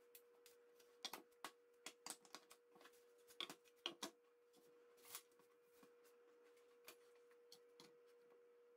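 Thin wooden boards clacking and knocking as they are handled and set down on a wooden tabletop: a quick run of sharp knocks in the first few seconds, then sparser ones. A faint steady hum runs underneath.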